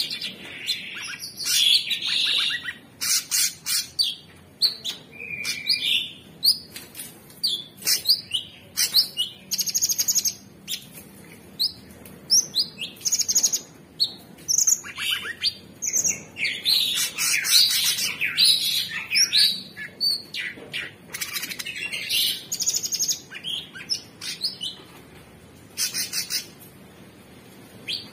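Orange-bellied leafbird singing a fast, varied, high-pitched song: rapid runs of chirps, trills and short gliding whistles, in bursts separated by short pauses.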